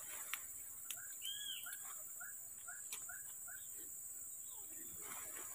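A bird calling: a run of about eight short, arching whistled notes, roughly three a second, starting about a second in and stopping after the middle. Beneath it runs a steady high drone of forest insects.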